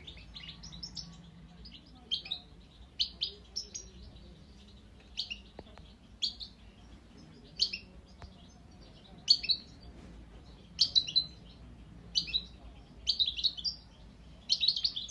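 Young European goldfinch giving short, scattered chirps and twitters, quickening into denser runs near the end: a fledgling just beginning to sing.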